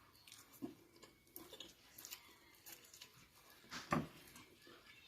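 Faint eating sounds from a meal of spaghetti and chicken: chewing and scattered small clicks, with one louder short knock about four seconds in.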